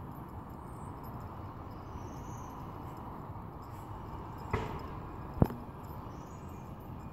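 Steady outdoor background noise with faint high chirps, broken by two sharp clicks about four and a half seconds in and again just under a second later, the second one louder.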